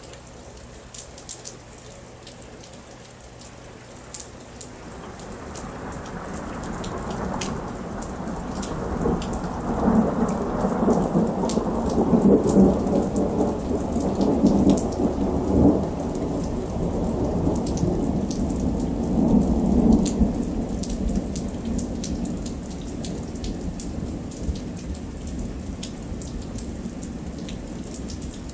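Steady rain falling on pavement with many small drips, and a long roll of thunder. The thunder swells in about five seconds in, rumbles loudest through the middle, and dies away over the last few seconds.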